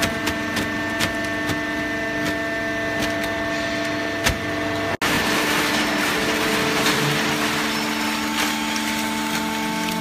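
Horizontal hydraulic baler running: a steady hum from its hydraulic pump and motor, with scattered sharp cracks and snaps from material being compressed in the baling channel. The sound cuts out for an instant about halfway through.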